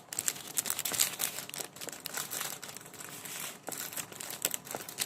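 Irregular crinkling and small clicks as squishy foam toys are handled and moved about between items.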